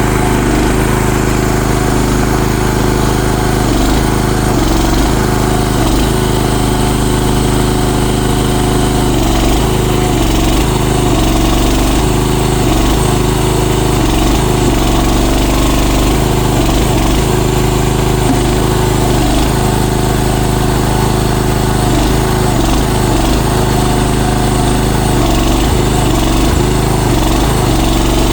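CFG MX15RX mini excavator's engine running steadily, its pitch dipping and rising again and again as the machine is worked.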